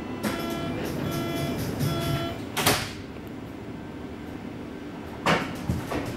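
U-Bahn door-closing warning beeps, repeating evenly for about two seconds. The sliding doors then shut with a loud thud a little under three seconds in. Another short, loud burst of noise comes near the end, over a low steady hum from the train.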